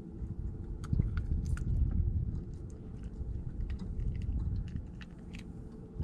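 Scattered small clicks and rustles of hands working a hook out of a small fish close to the microphone, over a steady low rumble.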